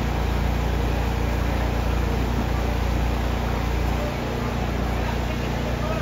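Steady low rumble of the Walt Disney World Railroad steam train running. The deepest part of the rumble drops a little about four seconds in.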